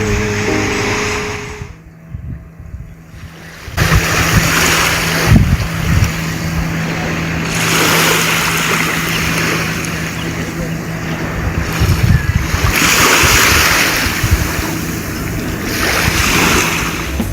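Surf washing in, swelling and fading every few seconds, with wind buffeting the microphone and a steady low drone underneath.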